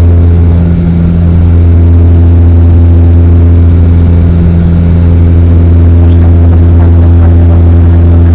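Airliner engines droning steadily, heard from inside the passenger cabin in flight: a loud, constant deep hum with steady higher tones above it.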